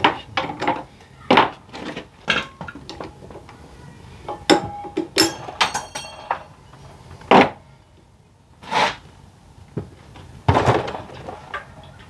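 Hand tools clicking and knocking against a small engine's centrifugal clutch as it is worked off the shaft: a string of separate metal clinks and taps, one about five seconds in ringing briefly.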